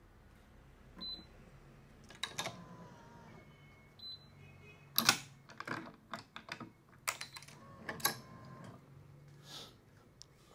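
Badminton racket string being pulled through the frame's holes by hand, with scattered sharp clicks and ticks and a few brief thin squeaks.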